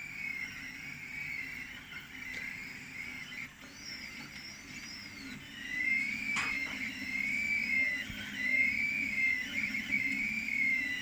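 3D printer's stepper motors whining as the print head moves, several pitches gliding up and down and crossing as the head speeds up and slows. A steady low hum runs beneath, with one sharp click about six and a half seconds in.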